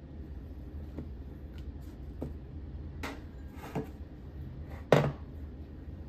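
Pour-over coffee gear handled on a counter: a few light taps and a short clatter as a paper-lined dripper is seated on a glass carafe, then a single sharp knock about five seconds in as a glass tumbler is set down. A low steady hum runs underneath.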